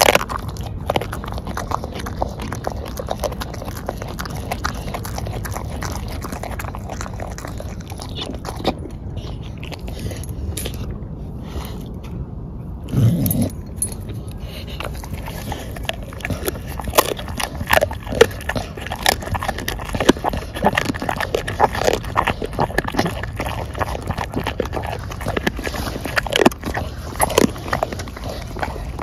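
A bulldog biting and chewing on a whole raw black chicken: irregular crunches and clicks of teeth on bone and flesh, with one short low sound, likely from the dog, about halfway through.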